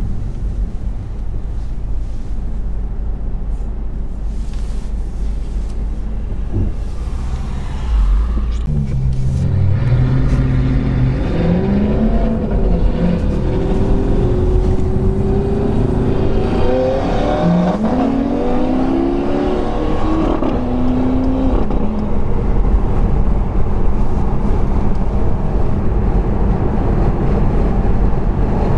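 Porsche 911 GT3 RS with an Akrapovič exhaust and an Audi R8 with a Capristo exhaust idling, then accelerating hard away. From about eight seconds in, the engines rev up in several rising sweeps, one after another through the gears, before settling into a steady rumble with road noise. Heard from inside the cabin of a following car.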